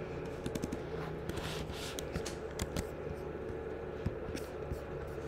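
Computer keyboard keystrokes and clicks, a handful of irregular taps, as a CSS value is retyped and the page switched, over a faint steady hum.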